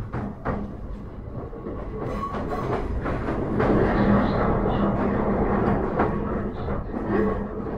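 JR E131-1000 series electric train running: a steady hum and rumble, with wheels clicking over rail joints now and then. It grows louder about two to four seconds in.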